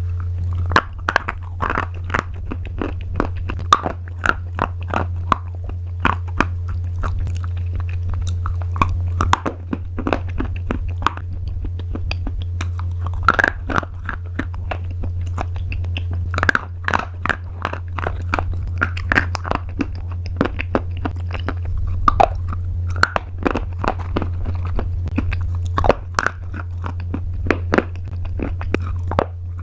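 Crunchy pasta being bitten and chewed close to the microphone: dense, irregular crisp cracks and crunches, over a steady low hum.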